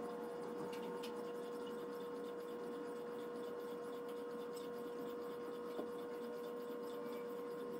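A Chosera 3000-grit stone in a guided sharpening jig sliding in sweeping strokes along a fish cleaver's edge, giving a soft, smooth rub under a steady hum. The smoothness shows the edge is nearly finished at this grit.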